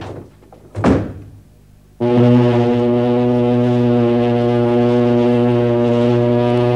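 Ship's horn sounding one long, deep, steady blast, starting about two seconds in.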